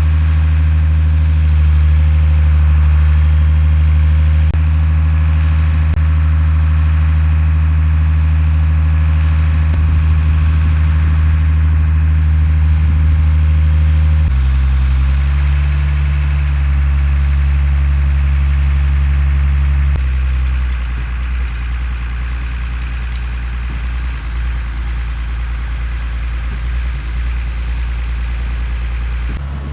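Large truck engine running at a steady idle, a low even drone. The pitch and character change abruptly about halfway through and again about two-thirds of the way in.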